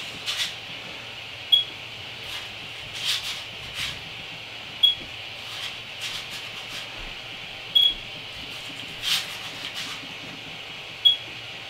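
Steady hiss of a 3D printer's hotend cooling fan, with a few short papery scrapes as a sheet of cardstock is slid under the nozzle to check the nozzle-to-bed gap during bed leveling. A short high chirp sounds about every three seconds.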